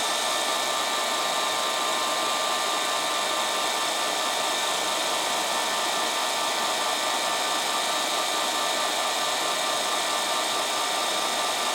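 Ceiling fan running steadily at speed: a constant whir of moving air with a whine from its motor.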